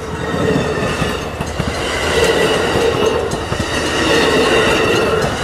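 Amtrak passenger train passing at speed at close range: the tail of a P42DC diesel locomotive, then Superliner bilevel cars, with a steady loud rumble and clatter of wheels on the rails and a steady ringing tone over it.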